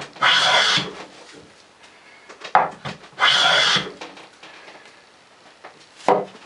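Wooden hand plane with a sharp blade taking two strokes along the edge of a board, each a short shaving rasp of about half a second, about three seconds apart. Each stroke begins with a knock as the plane meets the wood, and near the end the plane is knocked down onto the bench.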